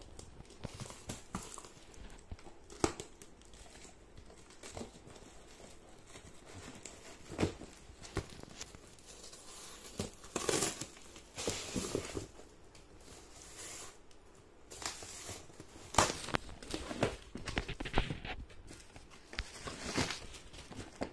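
A cardboard parcel in yellow plastic wrapping and packing tape being torn open by hand: tape and plastic tearing and crinkling, cardboard flaps rustling, then plastic film pulled off a boxed item. The bursts come irregularly and are busiest in the second half.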